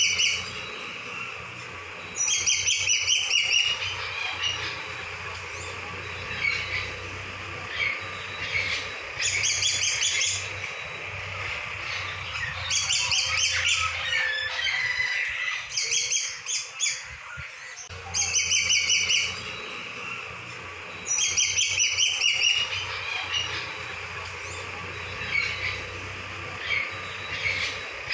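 Small birds chirping: loud bursts of rapid high chirps, each lasting about a second, repeat every few seconds, with scattered fainter chirps in between.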